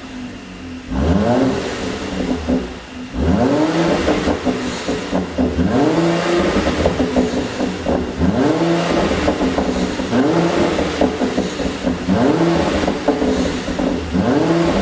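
Mercedes-AMG C43's engine revved in repeated blips, about one every two seconds, with popping and crackling from the exhaust as the revs drop, the sign of a pops-and-bangs tune.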